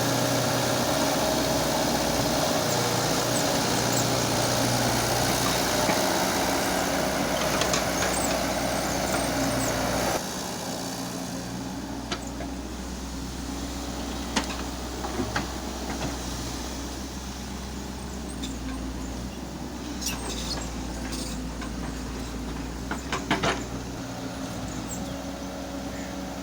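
Diesel engine of heavy machinery running steadily. About ten seconds in the sound drops abruptly to a quieter level, and a few sharp knocks follow later.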